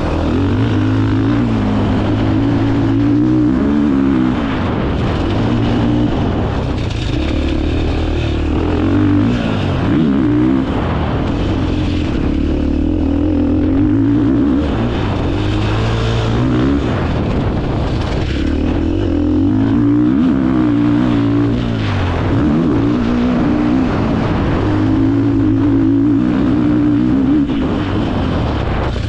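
KTM four-stroke single-cylinder dirt bike engine heard on board, its note climbing and dropping again and again as the throttle is opened and closed along a dirt track.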